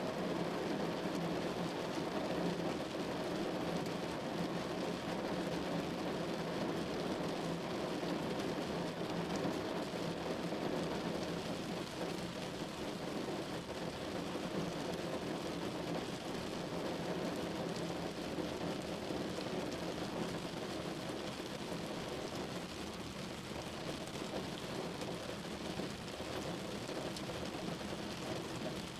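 Steady rain falling on a window pane, an even hiss and patter with no separate drops or breaks standing out.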